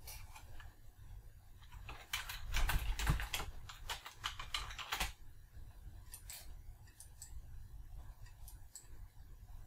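Computer keyboard typing: a quick run of keystrokes for about three seconds, then a few scattered clicks.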